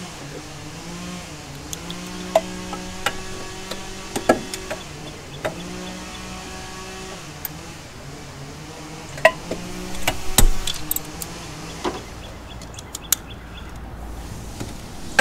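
Ratchet and socket clinking as they are handled and fitted together: a scatter of sharp metal clicks, the loudest about ten seconds in, over a steady low hum that shifts in pitch every second or two.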